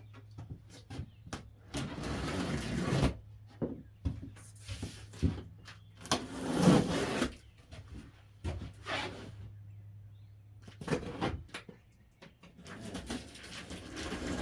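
Miter saw's packaging being handled during unboxing: bursts of rustling and scraping with scattered knocks and clicks, over a low steady hum that stops about eleven seconds in.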